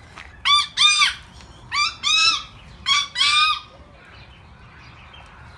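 Parrot squawking: three pairs of loud, harsh, arched calls in the first three and a half seconds.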